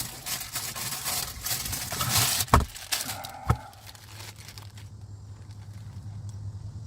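Rustling and handling noise with two sharp thumps about a second apart, then a steady low hum of a vehicle engine heard from inside a closed van.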